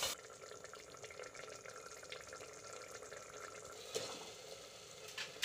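Onion-tomato masala gravy sizzling faintly in an aluminium pressure cooker. A soft knock about four seconds in and a couple more near the end come as peeled boiled eggs are dropped into the gravy.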